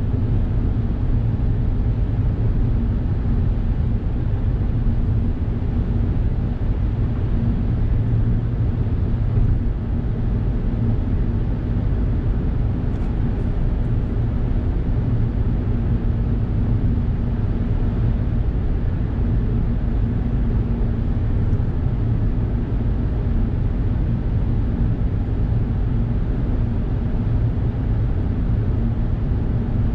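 Steady low drone of a Suzuki Hustler kei car cruising at expressway speed, heard from inside the car: tyre and road rumble with an even engine hum, echoing off the walls of a long road tunnel.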